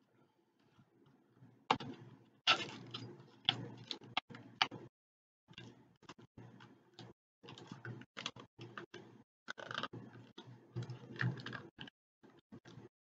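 Handgun being worked into and out of a stiff leather inside-the-waistband holster, making a run of light clicks, taps and rubbing handling noises with short pauses.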